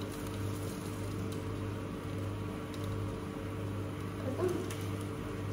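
A steady low electrical hum, like a kitchen appliance motor running, under an even hiss from the lit gas burner heating water in the pan, with a few faint light ticks.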